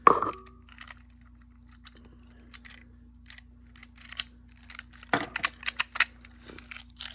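Small metal clicks and rattles from an OnGuard slider lock and its keys being handled: one sharp clack with a brief ring at the start, then scattered light clicks and a quick flurry of them about five seconds in.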